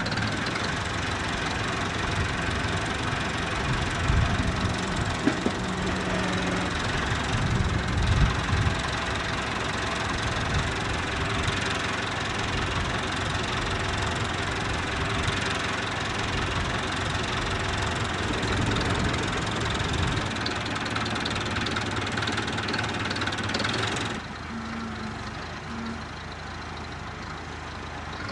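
Farm tractor's engine running steadily as it works its front loader, with a few low thumps a few seconds in. Near the end the sound drops to a quieter level.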